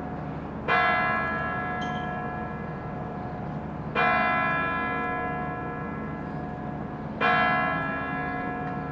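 The hour bell of the Kremlin chimes on the Spasskaya Tower striking the hour, three slow strokes about three seconds apart. Each stroke rings out and fades slowly before the next.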